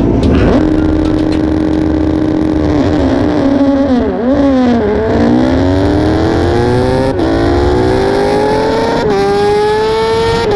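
BMW S1000RR superbike's inline-four engine at a standing race start. The revs are held steady for about two seconds, waver as the bike launches, then climb hard through the gears, with quick upshifts about seven and nine seconds in.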